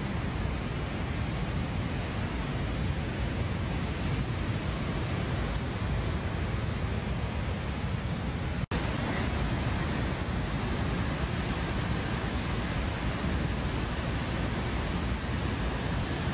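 Flooded mountain river rushing in a muddy torrent: a steady, unbroken noise, with a split-second dropout about halfway through.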